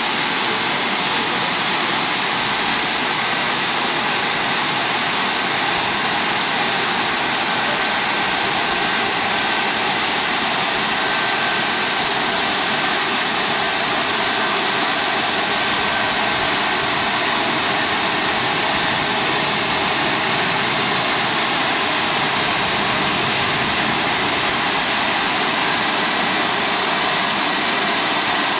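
Rollover car wash machine running over a car: a loud, steady rushing of its spinning brushes, water and motors that holds even throughout.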